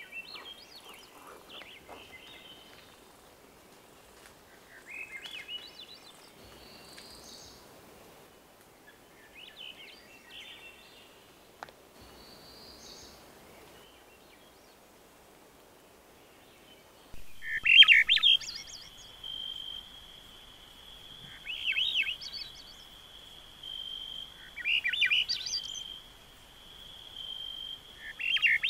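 Swainson's thrush singing: short flute-like phrases that rise in pitch, one every three to four seconds, faint at first and much louder from about seventeen seconds in. In the louder part a steady high tone runs behind the phrases.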